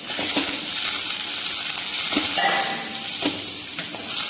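Shallots, garlic and whole spices frying in a little oil in a kadai on a low flame, with a steady sizzle. A spatula stirs the mixture, knocking and scraping against the pan now and then.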